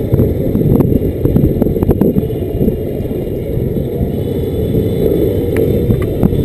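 250 cc motorcycle riding at low speed in traffic: a steady low rumble from the engine and road, picked up by the onboard camera's microphone.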